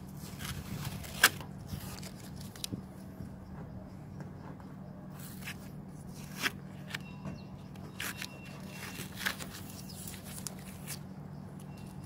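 Masking tape being peeled off a freshly spray-painted car door handle: scattered crackles and small snaps, the sharpest about a second in, over a steady low hum.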